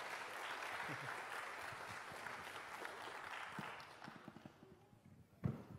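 Audience applauding at the end of a talk, dying away over the last couple of seconds, then a single thump near the end.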